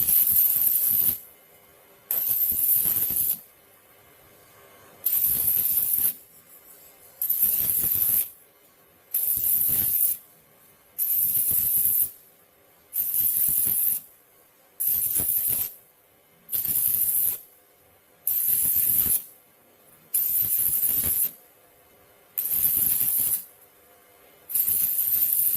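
Stick-welding arc burning a 1/8-inch E6013 electrode at 120 amps, crackling and hissing in about a dozen bursts of roughly a second each, with short pauses between.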